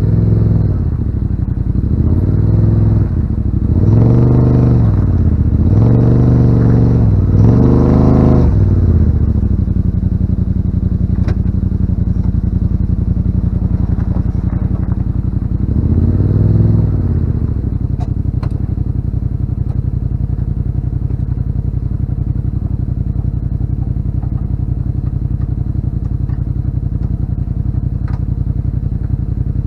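Yamaha RMAX side-by-side's engine revving in a series of short throttle blips, then settling to a steady idle, with one more blip partway through.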